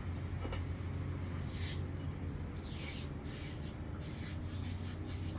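Aerosol can of WD-40 Bike degreaser spraying in short hissing bursts, two of them about a second apart, over a steady low hum.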